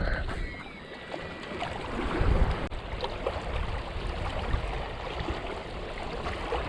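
Wind buffeting the microphone outdoors: a low, unsteady rumble that rises and falls.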